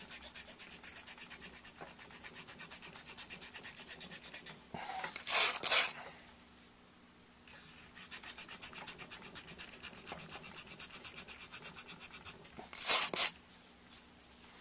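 A steel file being drawn across the wire bristles of a file card to clear clogged acrylic filler from its teeth: long runs of rapid, even ticking. Twice the run is broken by a short pair of louder, harsher scrapes.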